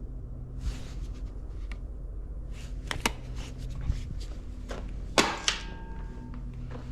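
A tape measure being handled: scattered light clicks and knocks, with a sharper metallic clack about five seconds in that leaves a brief ringing tone.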